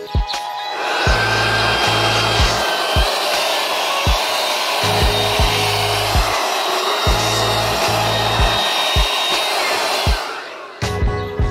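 Makita DUB186 18V cordless blower running steadily, a strong rush of air as it blows water droplets off a car's paint and glass. The blower cuts out shortly before the end. Background music with a steady beat plays underneath.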